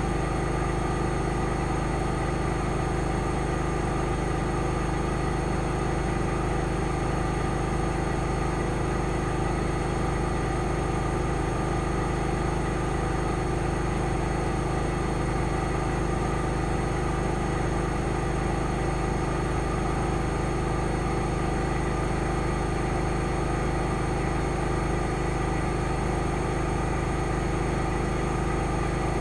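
AEG Lavamat 8000 Series front-loading washing machine in its final spin, its drum held at the top speed of 1600 rpm. A steady motor whine and hum over the rush of the spinning drum, with no change in pitch.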